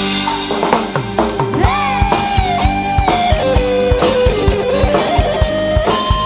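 Live dangdut band music: a fast, steady drum beat under electric guitars and a sliding, sustained lead melody.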